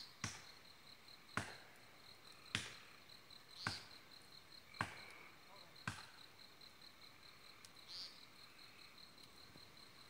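Hatchet blows chopping into a pine trunk, six strikes about a second apart that then stop, over steady high-pitched insect chirping.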